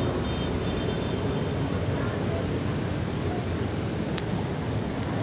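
Steady outdoor noise of wind buffeting the microphone, over a city background hum, with a single sharp click about four seconds in.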